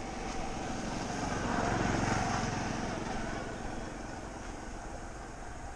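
A motorbike passes by, its engine growing louder to a peak about two seconds in and then fading away.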